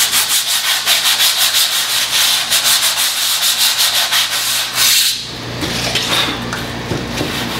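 Hand sanding of a canvas sized with rabbit skin glue, a sheet of sandpaper scraped back and forth over the surface in quick strokes, about five a second, to knock down nubbins before gesso goes on. About five seconds in, the strokes become lighter and more irregular.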